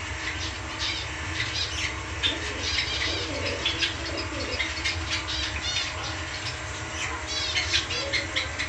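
Many small birds chirping in quick, scattered calls, over a steady low rumble.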